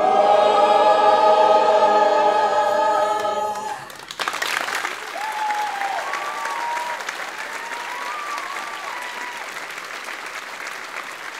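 A large group of voices holds the final chord of a song together, and the chord cuts off about four seconds in. An audience then breaks into applause with a few whoops, the clapping slowly easing off.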